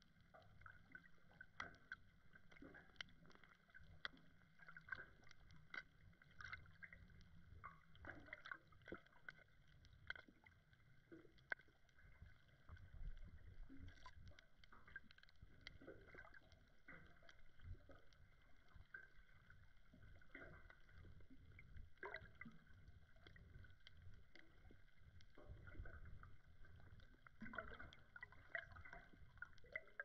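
Faint underwater ambience picked up by a submerged action camera: a low water rumble with many irregular small clicks and crackles throughout.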